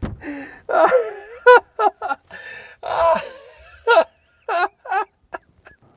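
A man's gasps and heavy breaths mixed with short, strained, laugh-like vocal sounds, the effort of squeezing in under a closing lid. The sounds come in quick bursts and die away about a second before the end.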